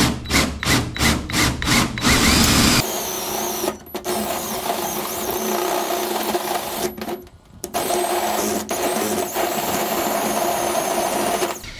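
Cordless drill turning a bimetal hole saw through an aluminum boat hull. The cut pulses about twice a second at first, then settles into a steady grinding with a high metallic squeal, breaking off briefly twice.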